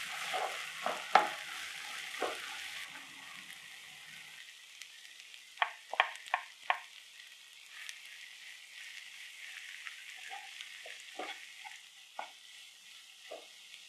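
Onion-tomato masala sizzling in a frying pan as a spatula stirs and scrapes through it; the sizzle is strongest in the first few seconds. About halfway, four sharp taps in quick succession come as ground spice powder is knocked out of a steel grinder jar into the pan.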